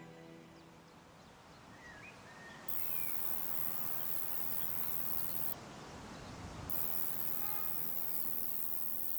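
A grasshopper-family insect's very high, continuous stridulating shrill. It starts abruptly about a quarter of the way in, breaks off for about a second past the middle, then carries on. A few short bird chirps come just before it starts and again near the end.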